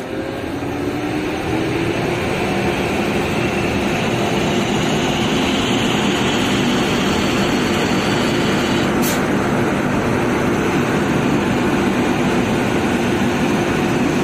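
WAP-7 electric locomotive powering up with its pantograph raised: its cooling blowers start abruptly and run loud and steady, with a whine that rises in pitch over the first few seconds. There is one short click about nine seconds in.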